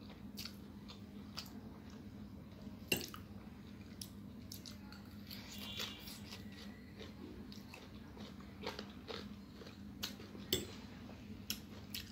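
Close-miked eating of prawn chow mein noodles: wet chewing and mouth sounds, with a noodle strand drawn in through the lips about halfway through. Sharp clicks stand out about three seconds in and again near ten seconds, over a low steady hum.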